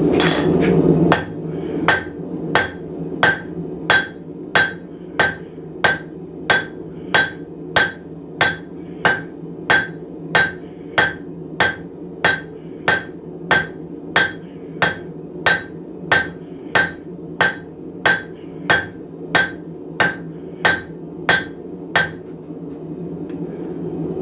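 Blacksmith's hammer striking hot steel bar stock on an anvil in an even rhythm, about two blows a second, drawing the bar out thinner. A high ring carries between the blows over a steady low hum, and the hammering stops near the end.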